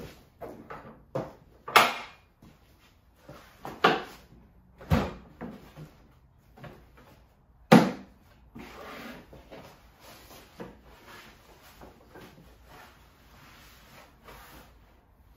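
Knocks and thuds from a 2x4-framed workbench with a plywood top as a person leans on it and climbs up onto it. Four loud thuds among smaller knocks, with quieter rustling near the end.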